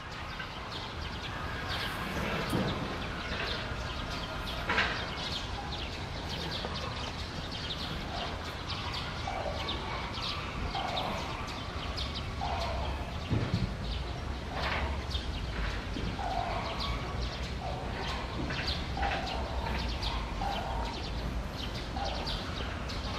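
Outdoor bird chorus: many small birds chirping, with a short mid-pitched call repeating about once a second through the second half, over a steady low rumble.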